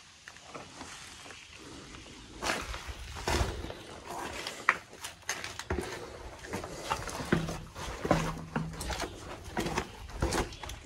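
Footsteps on gritty stone steps: irregular scuffs and taps of shoes on stone, with two short low hums about seven to eight seconds in.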